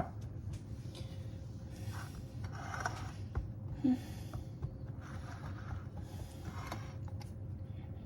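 Fingers pressing a crumbly crust mixture into a greased baking pan: soft, intermittent scraping and rustling over a steady low hum, with a light knock about four seconds in.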